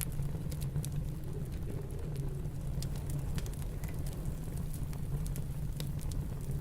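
Wood fire in a fireplace crackling, with scattered sharp pops over a steady low rumble of snowstorm wind.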